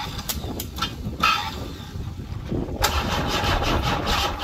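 A few short clicks and a brief hiss, then about three seconds in the Ford Cortina's 2.3 V6 starts cranking over on its starter motor with an even, rhythmic churn. The owner suspects the starter motor is too weak to spin the engine fast enough.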